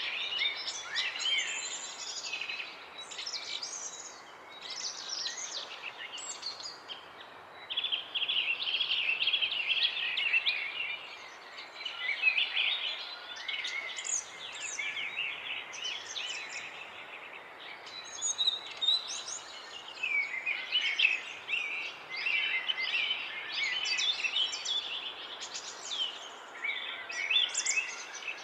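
Many birds chirping and calling at once, a dense chorus of short, high, overlapping chirps and trills over a steady background hiss.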